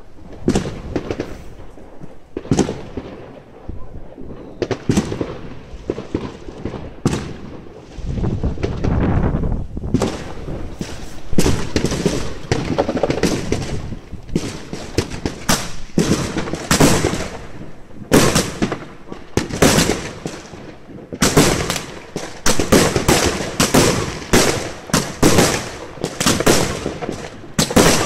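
Fireworks going off: scattered single bangs at first, then from about ten seconds in a denser run of booms and crackle, and from about two-thirds of the way through many sharp bangs a second.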